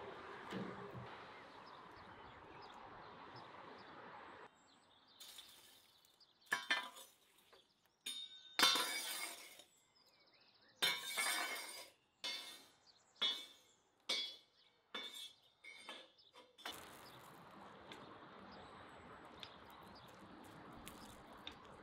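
Chicken simmering in sauce in a pan, a steady soft hiss, gives way about four seconds in to wood embers in a brick oven being raked with a metal poker: a string of crisp, glassy clinks and crackles of charred wood and coals, a fraction of a second to a second apart. The simmering hiss returns near the end.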